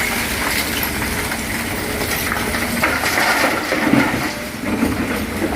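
Excavator working: its engine running under a steady clatter of metal clanks and scrapes.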